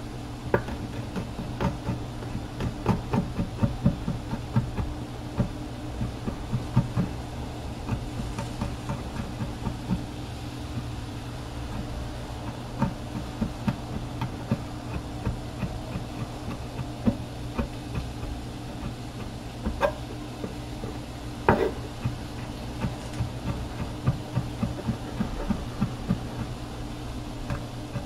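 Chef's knife mincing garlic on a wooden cutting board: quick runs of light knocks with a few louder chops, over a steady low hum.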